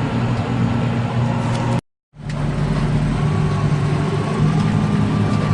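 Tractor engine running steadily under load, a low drone, which cuts out completely for a moment about two seconds in and then resumes with a faint steady whine over it.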